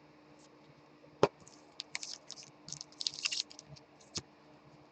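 A sharp click about a second in, then a couple of seconds of light, crackly clicking and rustling, and one more click near the end.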